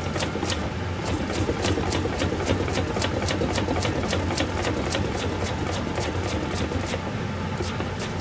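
Turnip being slid back and forth over a hand mandoline slicer's blade, each pass a sharp slicing stroke in a quick, even rhythm, over a steady low hum.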